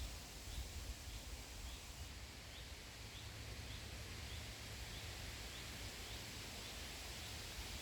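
Quiet outdoor ambience: a steady low rumble under a soft hiss, with a faint short high chirp repeating about once a second.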